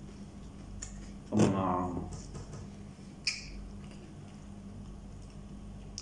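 A short vocal sound from the man about a second and a half in, then a single sharp click as he handles a bottle of hot sauce about three seconds in, over a steady low hum.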